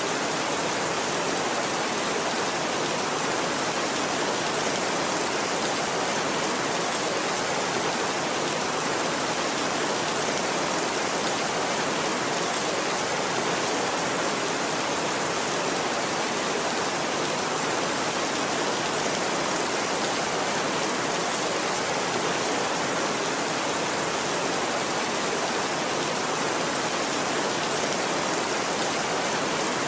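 Steady rain, an even hiss that neither builds nor breaks.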